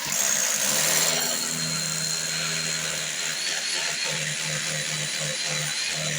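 Handheld electric power tool switched on and running with a steady high whine, starting the opening to reach a hidden leak.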